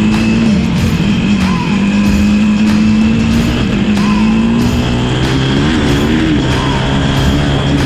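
KTM 250 SX-F four-stroke single-cylinder motocross engine running at high revs, with a few brief dips in pitch as the throttle is rolled off and back on.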